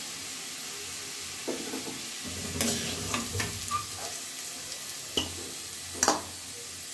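Fried potato cubes sizzling in hot oil in a metal kadai, with a steady hiss. From about a second and a half in, a metal spoon scrapes and clinks against the pan as the potatoes are scooped out, with a sharp clink about six seconds in.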